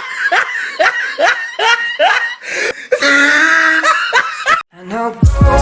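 A person laughing hard in a quick run of short bursts, about two or three a second. Music with a heavy bass beat comes in near the end.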